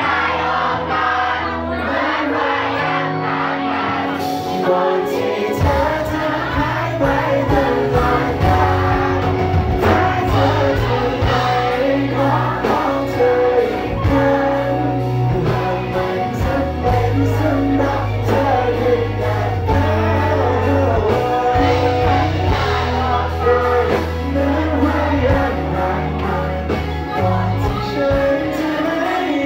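Live band music with a singer: a steady beat and a sustained bass line under the sung melody. The deep bass comes in about five seconds in.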